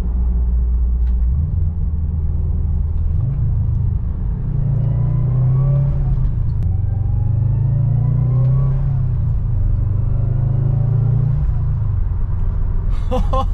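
2011 Subaru WRX's turbocharged 2.5-litre flat-four accelerating in three pulls, each rising in pitch and then dropping off as the throttle lifts, with a faint rising whistle during the middle pulls. On lift-off the aftermarket Turbosmart plumb-back bypass valve vents boost with a subtle high-pitched psh.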